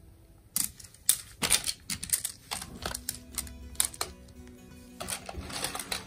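Plastic magnetic building tiles clicking and snapping together as they are picked up and joined, an irregular run of sharp clacks that starts about half a second in, over soft background music.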